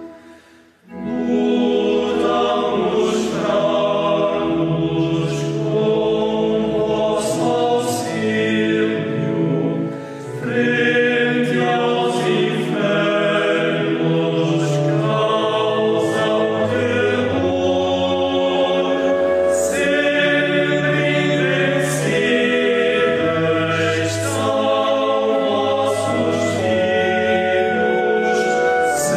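Male choir singing a Marian hymn in Portuguese. The singing drops almost to silence for a moment just after the start and dips briefly again about ten seconds in.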